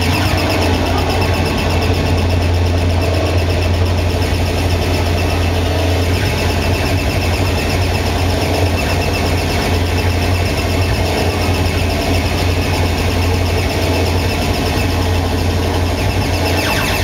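Live harsh noise music played loud through a club PA: a dense, unbroken wall of distorted noise over a steady low drone. The drone drops out near the end.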